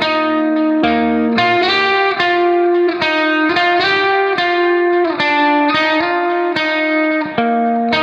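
Background instrumental music: sustained chords with clear note onsets, changing about twice a second.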